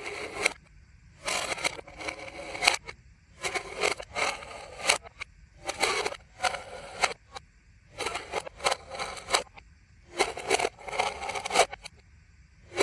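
Aluminium foil being crinkled and scraped in short bursts, often in pairs, about one burst a second with brief pauses between.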